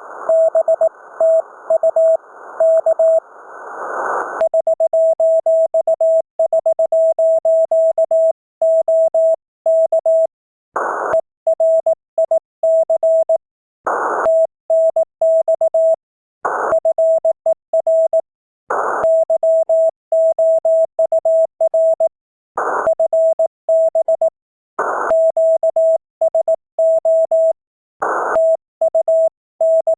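Morse code (CW) on a ham radio transceiver: a single steady tone keyed on and off in dots and dashes. Band hiss lies under the tone for the first few seconds, and short bursts of hiss come every two to three seconds after that.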